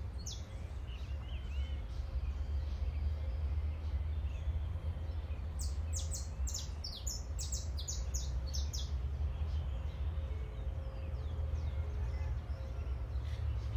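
Small birds chirping in quick, high, repeated notes, busiest from about six to nine seconds in, over a steady low rumble.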